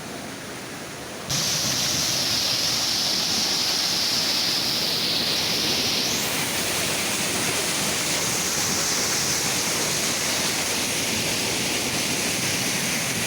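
Steady rush of a waterfall's falling water, cutting in suddenly and loud about a second in after a quieter stretch of flowing water.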